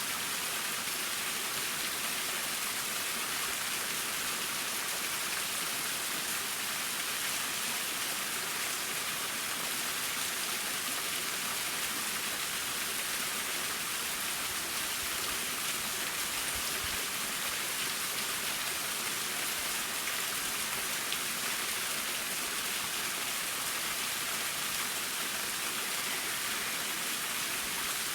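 Akataki waterfall's water falling and splashing in a steady, even hiss that is strongest in the higher pitches.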